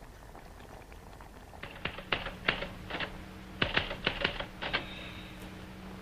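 Manual typewriter keys clacking in an irregular run of about a dozen strikes, starting about a second and a half in and stopping near the end, over a low steady hum.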